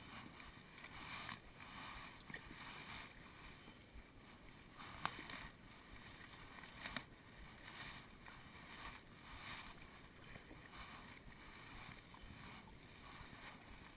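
Faint kayak paddle strokes: the blades swish and splash softly in the water about once a second, with two sharp knocks about two seconds apart near the middle.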